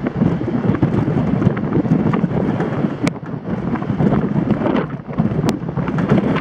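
Strong gusty wind buffeting the microphone: a loud, unsteady low rumble. Two brief sharp ticks come about halfway through and near the end.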